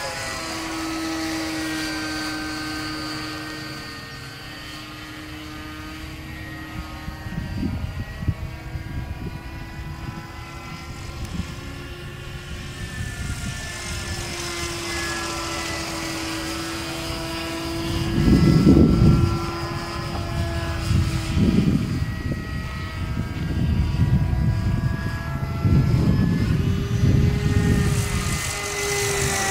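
Gyrocopter engine and propeller droning overhead, its pitch sliding slowly up and down as it passes. Irregular bursts of low rumble break in and are loudest about two thirds of the way through.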